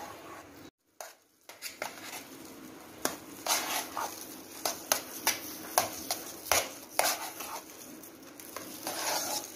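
Thick, chilled milk cream (malai) being beaten by hand in a steel bowl to churn it into butter. A fast, uneven run of stirring strokes, with sharp clicks and scrapes against the bowl, starts after a short gap about a second in. The cream has stiffened and gone dry and crumbly, the stage before the butter separates from the liquid.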